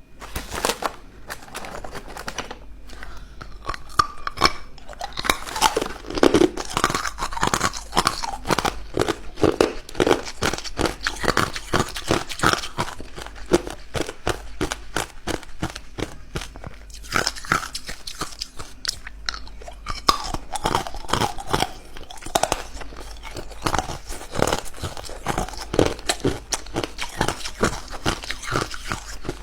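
Person biting and chewing ice cubes close to the microphone, with rapid sharp crunches and cracks of the ice breaking between the teeth.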